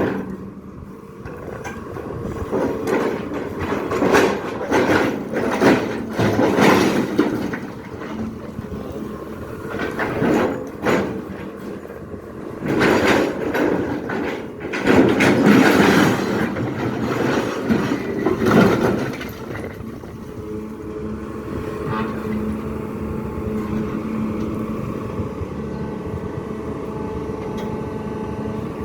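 SANY excavator at work: its engine running under load, with irregular loud knocks and scraping surges for most of the time. Near the end it settles into a steadier, even hum.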